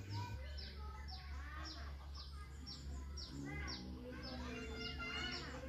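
Birds chirping and singing: a short high chirp repeats about twice a second while other calls warble, over a steady low hum.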